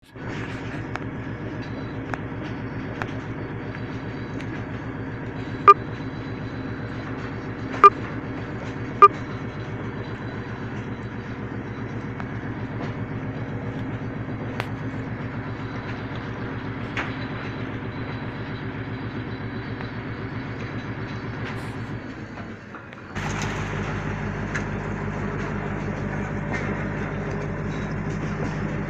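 Fishing trawler's diesel engine running steadily, with three sharp knocks a few seconds apart. Near the end the sound briefly drops, then comes back louder with a stronger low hum.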